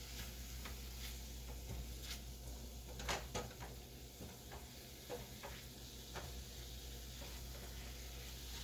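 Food sizzling in a frying pan, with scattered light clicks and knocks from a utensil or cookware, two close together about three seconds in, over a steady low hum.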